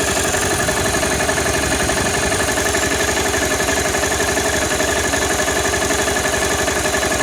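Honda CBR250R single-cylinder engine idling steadily with a rapid, even beat, carrying the mechanical rattle of its cam chain. The tensioner has not yet been adjusted, and the mechanic blames the noise on a loose cam chain tensioner letting the chain strike the engine.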